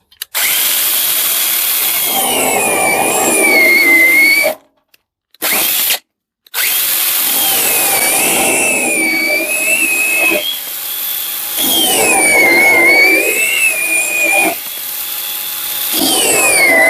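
Parkside 20 V cordless mini chainsaw running and cutting branches, its motor giving a high whine that dips and wavers in pitch as the chain takes the wood. It stops for about two seconds near the middle, with one short burst in between, then runs and cuts again.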